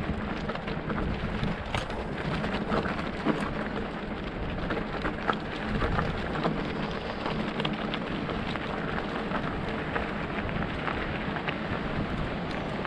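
Mountain bike ridden over a rough trail: a steady rush of tyre and wind noise with frequent small clicks and rattles.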